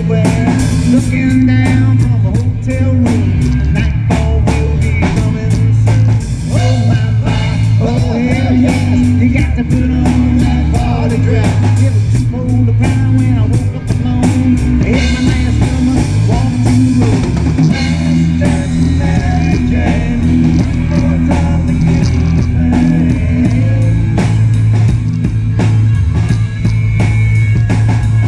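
Loud rock music with singing, guitar and a drum kit over a heavy bass line, with a steady beat.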